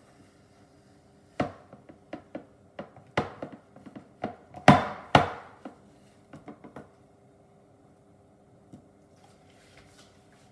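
A run of sharp knocks and short scrapes from kitchen utensils on a hard surface or dish, about a dozen over five seconds, the loudest two near the middle, over a faint steady hum.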